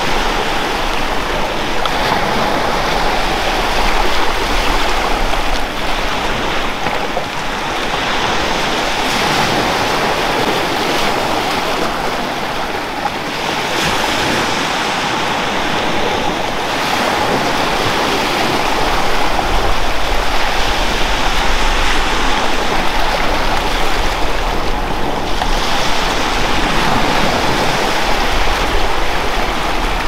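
Sea waves washing onto a beach: a steady surf that swells and eases over several seconds.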